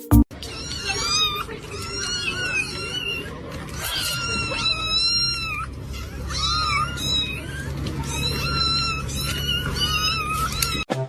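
A cat meowing over and over in a run of high-pitched calls that bend up and down, over a steady low rumble.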